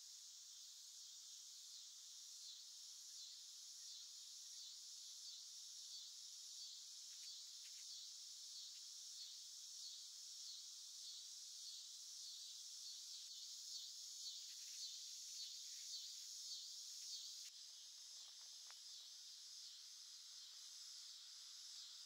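Faint, steady high-pitched chorus of singing insects, such as crickets, with a regular pulsing of about three beats every two seconds. The chorus changes abruptly about seventeen seconds in.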